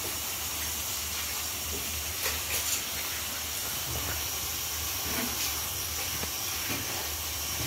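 Steady hiss of steam escaping from a makeshift tin steaming box, with a few light clicks.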